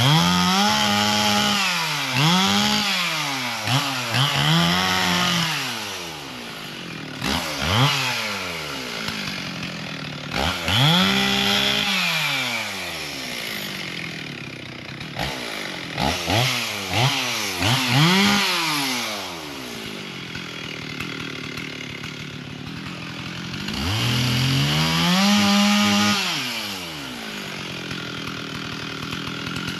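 Chainsaw cutting fallen trees, its engine revved up and let back down again and again, about seven throttle bursts with idling in between.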